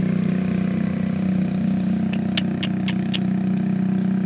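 A motorbike engine idling steadily, with a few short, sharp clicks about halfway through.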